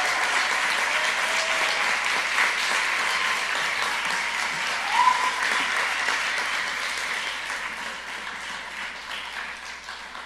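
Audience applauding, with a brief rising call from someone about halfway through; the clapping slowly dies away near the end.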